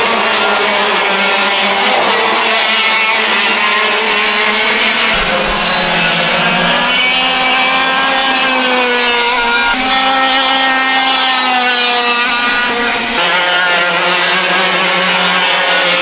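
Several 100cc two-stroke kart engines racing at high revs, their pitch rising and falling as the karts come past and through corners. The sound changes abruptly about five seconds in and again near thirteen seconds, as one shot gives way to the next.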